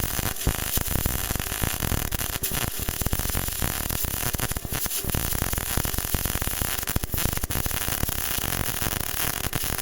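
Arc of a BestArc MIG145 welder crackling steadily during a weld run, a dense, even crackle full of tiny pops.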